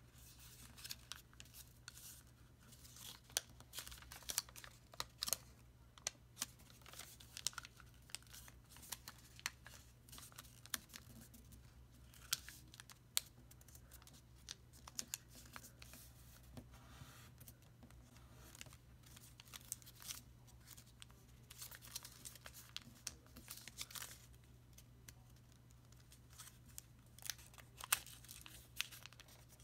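Origami paper being folded and creased by hand: irregular crisp crinkles, rustles and small clicks as the sheet is flattened and squash-folded.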